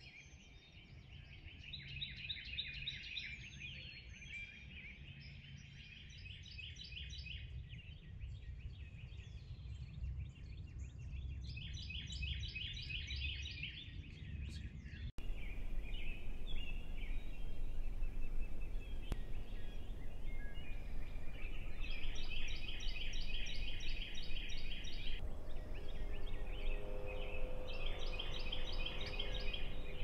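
Songbirds singing in a dawn chorus, many overlapping chirps and trills. About halfway through, the sound cuts abruptly to a louder outdoor scene with a steady low rumble under more bird trills.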